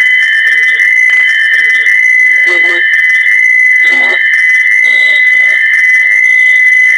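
Echovox app playing through a Galaxy phone: a loud, steady high-pitched squeal that the phone produces in reaction to the app's echo. Short, choppy fragments of garbled voice from the app's sound bank come through under it about once a second.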